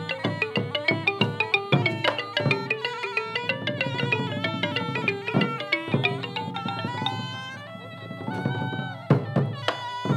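Traditional Cambodian pinpeat ensemble music accompanying masked dance: drums and fast, regular struck percussion, with a reed wind instrument playing a held, bending melody that comes to the fore in the second half, and a sharp drum stroke near the end.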